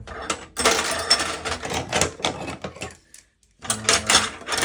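Loose metal hand tools rattling and clinking against each other and the steel of a tool box as they are handled, a dense clatter of about three seconds, a short pause, then more near the end.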